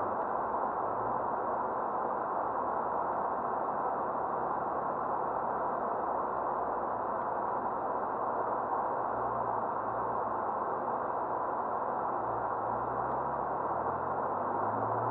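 Cabin noise of a 1985 BMW 735i on the move, heard through a cheap dashcam microphone: a steady hiss of road and engine noise. The straight-six engine's low drone rises and falls now and then, more often in the second half.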